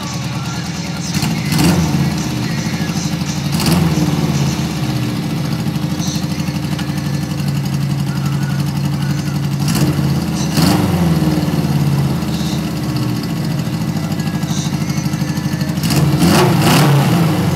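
Suzuki GS550's air-cooled inline-four engine running at idle and blipped on the throttle five times: about a second and a half in, near four seconds, twice around ten to eleven seconds, and once more near the end. Each rev rises and falls back to idle while the idle is being set.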